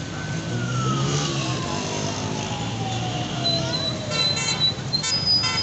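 Street traffic: a siren-like tone holds steady, then slides down in pitch over about three seconds, over a low vehicle rumble. Near the end come short, repeated vehicle horn honks.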